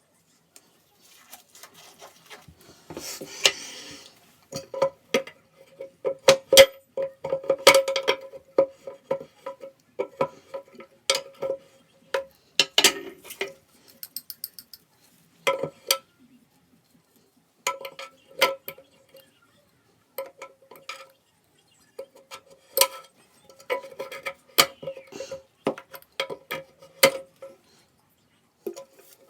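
Hard objects clinking and knocking irregularly, many knocks leaving a short ringing note, as toilet tank parts are handled. There is a burst of rustling about three seconds in and a short pause about two-thirds of the way through.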